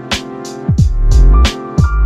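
Background music with a steady beat: deep drum thumps and sharp hits under sustained notes.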